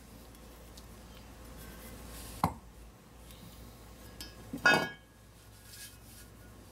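Two metallic clinks of machined turbocharger parts knocking together as the cover is handled and tried over the impeller, the second louder with a short ring.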